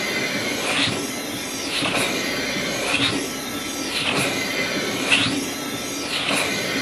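Homemade model beam engine running on compressed air: the air hiss swells and fades in a steady rhythm about once a second as the piston cycles, over a steady low hum.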